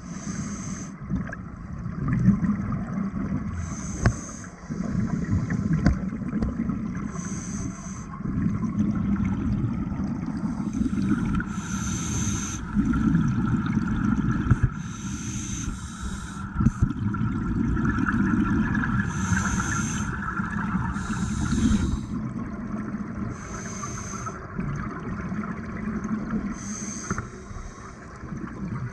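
Scuba diver breathing through a regulator underwater: a hissing breath about every three to four seconds over a steady low rumble of water and bubbles.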